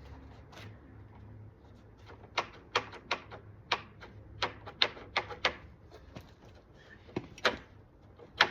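About a dozen sharp, irregular clicks and taps from a hand screwdriver and metal fittings at work on a fire door's drop seal. They come in a quick run, pause, and end with the loudest click.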